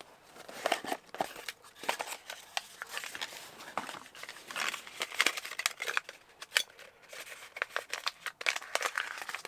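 Plastic packaging of model-kit parts being opened and handled: an irregular run of crinkles, crackles and small clicks.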